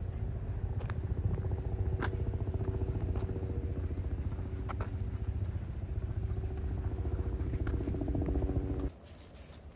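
A motor running with a deep, steady rumble and hum, with a few faint clicks over it; it cuts off suddenly near the end.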